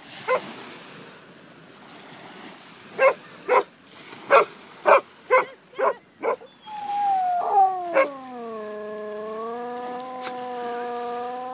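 A springer spaniel barks once, then fires off a quick run of about seven barks. About halfway through, a basset hound starts a long bay: a drawn-out howl that slides down in pitch, then holds steady, with one more bark over it.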